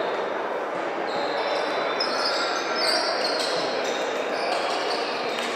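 Sports hall sounds during a volleyball match: short, high sneaker squeaks on the court floor over a steady hubbub of indistinct voices echoing in the hall.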